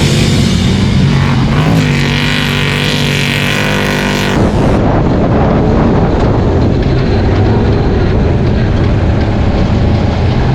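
Off-road race truck engine running at speed, mixed with music. About four and a half seconds in the sound changes abruptly to a rougher, noisier rush.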